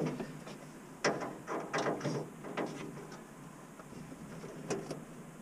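About five scattered clicks and knocks of metal parts being handled in an opened tower-crane control cabinet.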